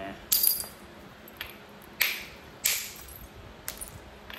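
Sharp stone-on-stone clicks of a hammerstone striking a chert core to knock off flakes: three loud strikes, near the start, at about two seconds and just after, with a couple of fainter taps between.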